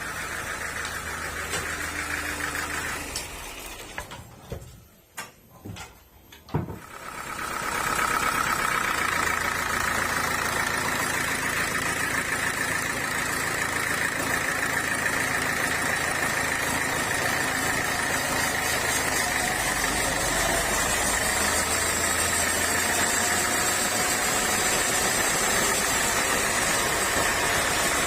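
Sawmill machinery running with a steady mechanical whir. It drops away almost to quiet about four seconds in, then comes back louder about eight seconds in and runs on evenly.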